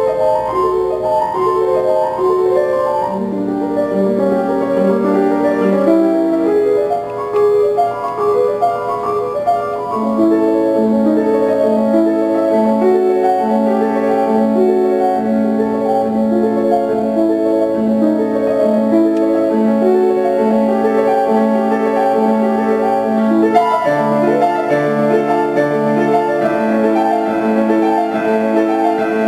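Grand piano played solo: a melody over lower notes that settle into a steady repeating accompaniment about ten seconds in.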